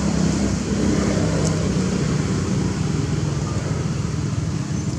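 An engine running steadily: a low, even hum under a steady rushing noise.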